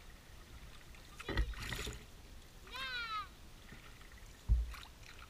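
Canoe paddling: two paddle strokes, the first about a second in with a knock and a brief splash of water, the second a low knock near the end. A short high-pitched voice sounds once between them.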